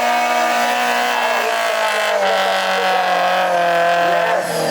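Off-road 4x4 engine revving hard under load, its pitch wavering up and down.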